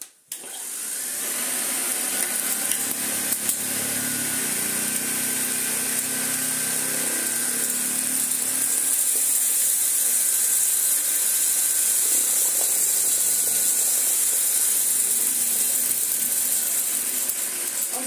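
1935 Hoover 825 upright vacuum cleaner starting up, its motor spinning up over the first second or two, then running steadily with a strong high hiss as it sucks scattered debris off a rug.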